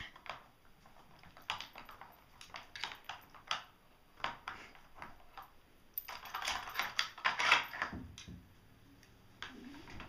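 The loose plastic bone-shaped covers of a Nina Ottosson treat-finder puzzle clicking and knocking as a small dog noses at them, hunting for treats. The clicks are light and irregular, with a busier patch of rattling about six seconds in.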